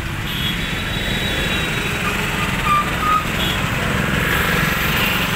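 Auto-rickshaw engine idling steadily with a low rumble amid street traffic; a couple of short high beeps sound around the middle.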